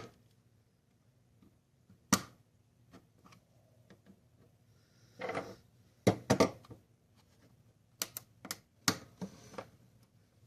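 Plastic housing of a Wi-Fi smart plug being pried open: a run of sharp plastic clicks and snaps from its snap-fit clips, with brief scraping of a tool against the plastic. A single click comes about two seconds in, a scrape just after five seconds, then a cluster of clicks from about six to nine seconds.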